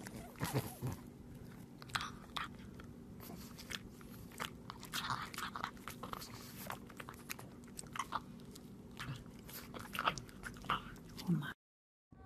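A pug biting and chewing dry salmon jerky held close to the microphone: a run of irregular crunches and mouth clicks that cuts off abruptly near the end.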